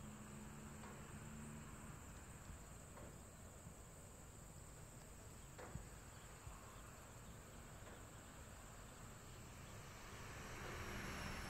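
Near silence: a faint steady high-pitched hiss, with a soft click a little before the middle and a slight swell near the end.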